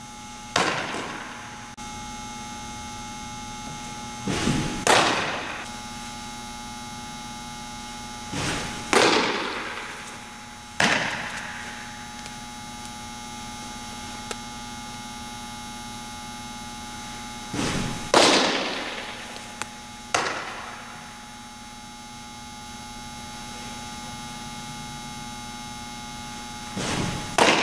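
Softballs smacking into a leather catcher's mitt, about seven sharp pops with short echoing tails, a few with a lighter knock just before. A steady electrical hum runs underneath.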